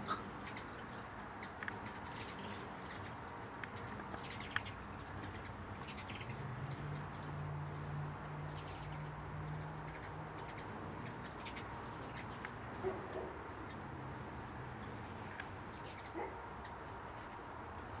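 Hummingbirds at nectar feeders giving scattered short, high chips and chirps, over a steady high-pitched whine. A low hum comes in for a few seconds in the middle.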